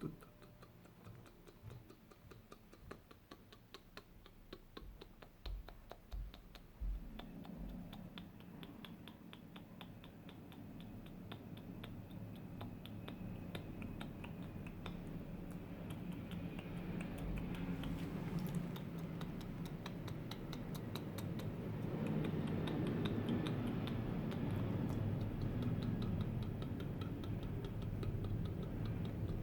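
Close-miked ASMR tapping: a fast, even run of light clicks that grows gradually louder, with a few soft thumps in the first several seconds.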